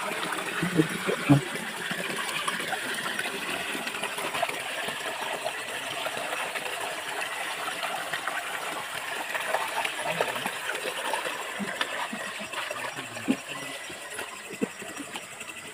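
Creek water running steadily, with a few short knocks, about a second in and again near the end.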